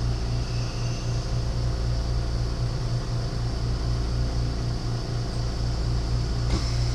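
A steady low machine hum that throbs regularly a few times a second, over a faint high hiss, with a single click near the end.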